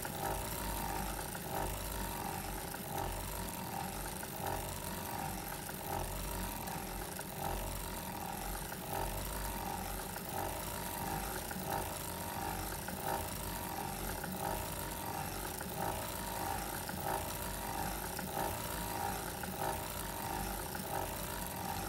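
Foster Victoria vintage circular sock machine being hand-cranked continuously, its latch needles working up and down in the ribber and cylinder as it knits ribbing: a steady, evenly repeating mechanical sound.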